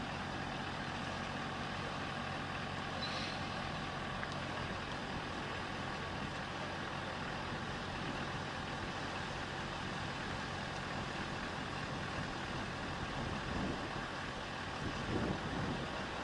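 Fire pump engine running at a steady drone, with gusts of wind buffeting the microphone near the end.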